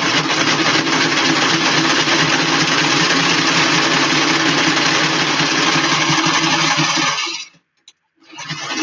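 Electric sewing machine running at a steady speed, stitching a seam through leather. It stops about seven and a half seconds in, then runs again for about a second near the end.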